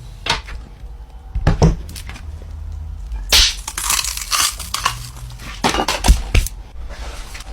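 Irregular crunching and crackling, in about seven sharp bursts of differing loudness over a low steady hum.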